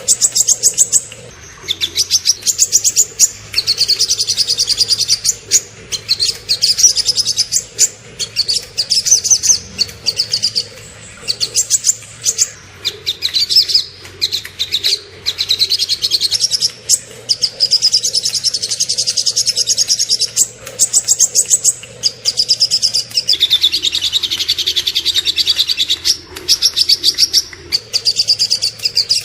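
Small songbird singing fast, high-pitched trilled phrases of rapidly repeated notes, one phrase after another with brief breaks. This is the rapid-fire 'tembakan' style of song used as a masteran, a tutor recording for training cage songbirds.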